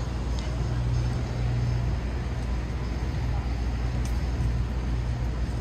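City street ambience in the rain: steady rain hiss over the rumble of traffic, with a steady low hum throughout.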